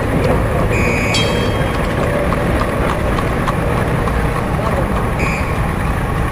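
Street ambience: a steady mix of traffic noise and indistinct crowd chatter, with a bell ringing briefly about a second in and again about five seconds in.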